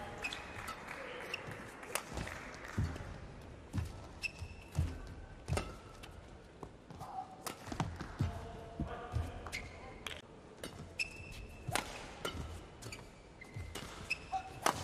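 Badminton rally: sharp cracks of rackets hitting the shuttlecock every second or two, with short squeaks of court shoes and thuds of footfalls on the court mat between the hits.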